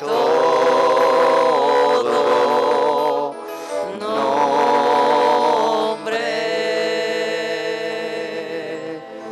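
A slow church hymn sung in long held notes with vibrato, a few notes over several seconds. The last note holds for about three seconds and fades.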